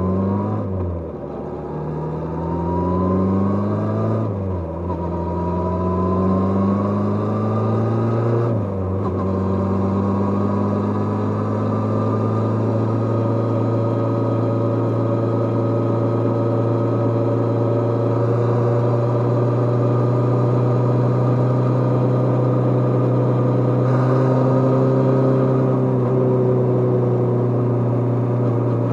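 Kawasaki GPZ550's inline-four engine under way, accelerating hard through the gears: the revs climb and drop sharply at each upshift, about 1, 4 and 9 seconds in. It then holds a steady cruising speed with a constant engine note.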